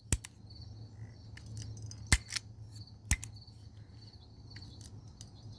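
Colt M45 CO2 BB pistol dry-fired with its CO2 spent: three sharp clicks of the action, the second about two seconds after the first and the third a second later, with small ticks between as the trigger is worked. Crickets chirp faintly behind.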